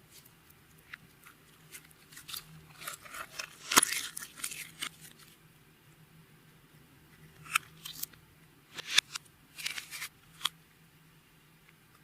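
Clear slime being pressed and stretched by hand, giving sticky clicks and pops in two bursts of a few seconds each, the loudest pop about four seconds in.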